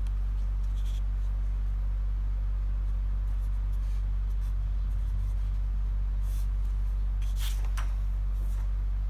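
Felt-tip marker writing on paper, with a few short scratchy strokes in the second half, over a steady low electrical hum.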